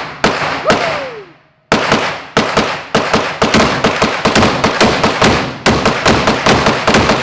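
Gunfire: three shots, a pause of about a second, then a long rapid string of shots, several a second, each with a short echoing tail.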